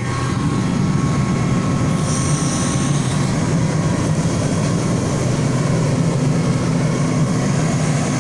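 A fire truck's diesel engine idling: a steady, loud mechanical rumble. About two seconds in, a thin high whine sounds for roughly a second.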